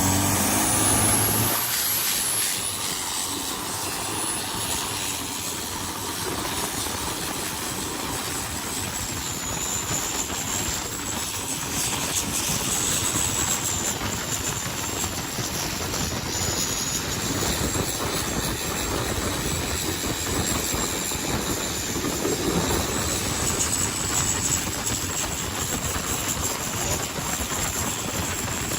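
Longtail racing boat's Isuzu turbo diesel engine revving up hard, then running flat out under a dense rushing noise, with a steady high whine over it for most of the run.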